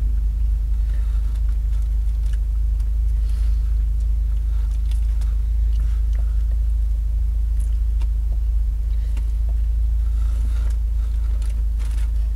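Steady low rumble of a car heard from inside its cabin, with faint chewing and paper-wrapper rustles from someone eating a chicken sandwich.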